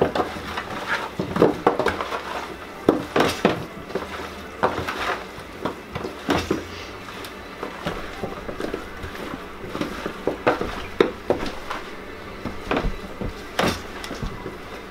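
Gloved hands tossing and turning raw, seasoned chicken wings in a plastic tub: irregular soft slaps of the meat and knocks against the tub.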